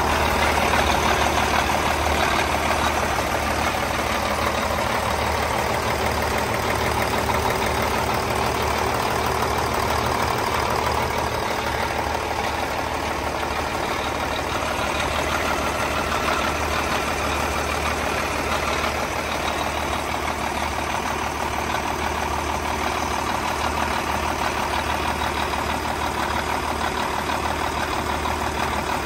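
2000 Cummins N14 red top inline-six turbo diesel in a heavy truck, idling steadily, heard close up beside the engine.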